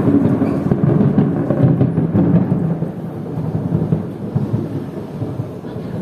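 Heavy thunderstorm: a long low thunder rumble over the hiss of heavy rain, fading gradually through the second half.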